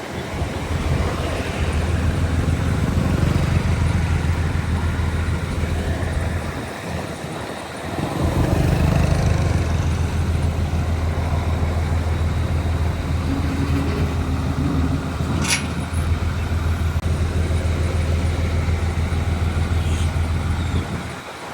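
Heavy earthmoving machinery's diesel engine running steadily and loudly. It drops away briefly about seven seconds in, then picks up again. A brief sharp high-pitched sound comes about fifteen seconds in.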